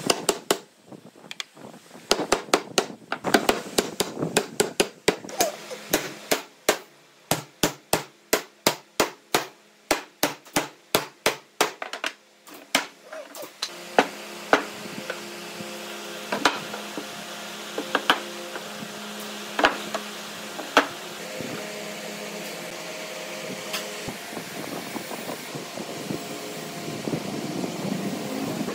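Hammer knocks on wood in a quick regular run, about two a second for some ten seconds, as slatted wooden parts are driven together. Then a steady hum with a few single sharp knocks.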